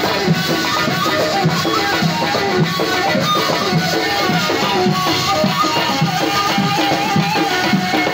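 Live Tunisian folk music played through loudspeakers: an electronic keyboard melody over a steady drum beat.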